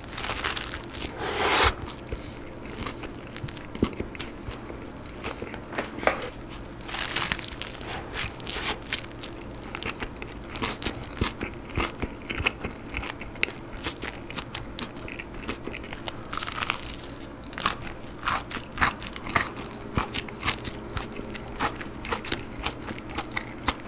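A person biting into a Mom's Touch Thigh Burger, a burger of crunchy breaded fried chicken thigh, then chewing it, picked up close by the microphone. A loud crunching bite comes in the first two seconds, then steady chewing with many small crunches, and another crunchy bite about sixteen to eighteen seconds in.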